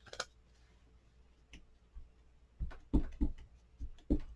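Scattered light clicks and taps of a rubber stamp and a Memento Black ink pad being handled as the stamp is inked, with a quicker run of taps in the second half.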